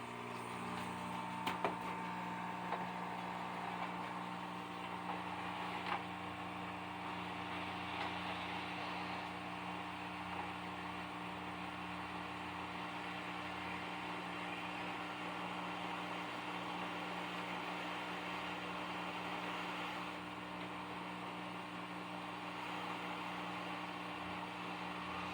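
Steady airy whoosh of a hot air rework station's blower, with a steady hum under it, heating the circuit board to melt the solder for an HDMI port replacement. A few light clicks in the first couple of seconds.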